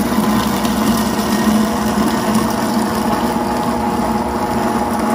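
Countertop jug blender's motor running steadily, pureeing steamed red dates and kidney beans with only a little water into a thick paste.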